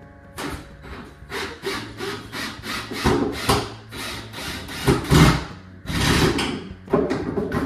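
A saw cutting wood in short, uneven rasping strokes, roughly two or three a second, with one longer stroke about six seconds in.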